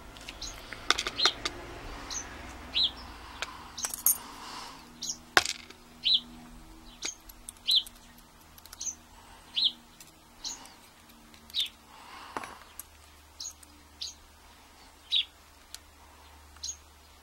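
A bird chirping a short repeated call about once a second, with scattered small metallic clicks and taps of a tool working at a euro lock cylinder's pin chamber.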